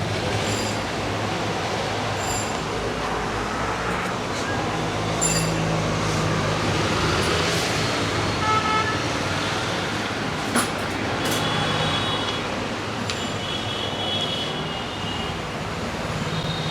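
Steady street traffic noise with vehicle horns tooting briefly several times, and one sharp click a little past the middle.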